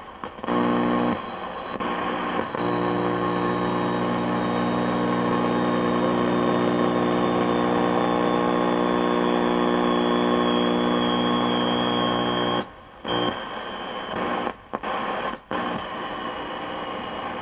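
Speaker of a 1966 Sylvania tube color television giving out a harsh, steady buzz as the set is tuned across a test generator's signal. The buzz cuts out briefly about a second in and again several times near the end as the knobs are turned.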